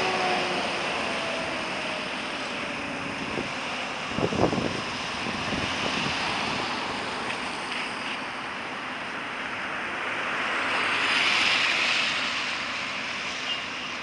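Road traffic passing on wet pavement: a steady hiss of tyres, with a short low rumble about four seconds in and one vehicle swelling louder as it passes near the end.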